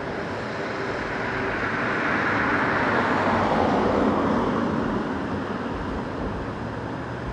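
A vehicle passing by: a broad road rumble that swells to its loudest about three to four seconds in, dropping in pitch as it goes, then fades.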